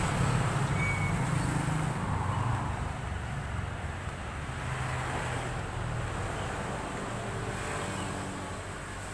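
Steady low rumble of motor-vehicle engines, slowly getting quieter.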